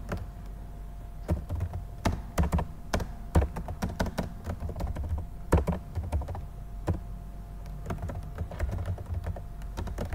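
Typing on a computer keyboard: an irregular run of key clicks, coming in quick bursts with short pauses between words.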